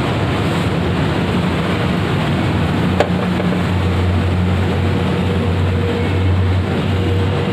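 Steady roadside traffic noise with the low hum of a running engine, and a single sharp click about three seconds in.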